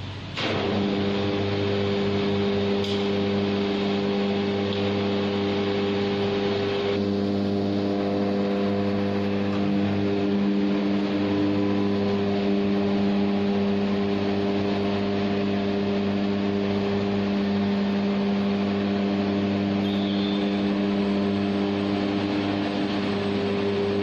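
An electric motor starts about half a second in and runs on with a steady whine of several held tones, an overhead electric hoist lifting a chained stack of sawn wooden slabs.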